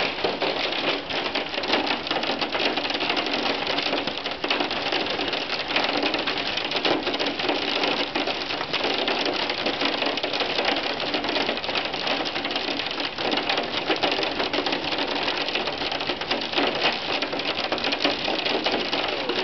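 Hail mixed with rain pelting down: a loud, steady, dense clatter of countless small hits.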